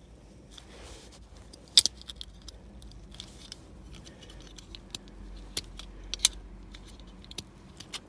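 Knife blade prying and scraping at a festoon bulb held in the metal clips of a plastic interior-light holder, making scattered small clicks and ticks, the loudest about two seconds in.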